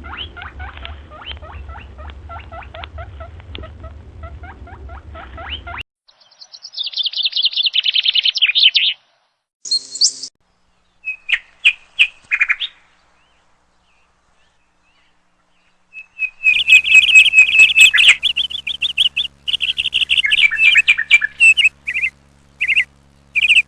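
Birds chirping and calling in a string of separate short recordings. First comes a run of quick chirps over a low hum, then a fast trill falling in pitch, a few short calls and clicks, and after a few seconds of near silence a loud burst of repeated high calls that runs to the end.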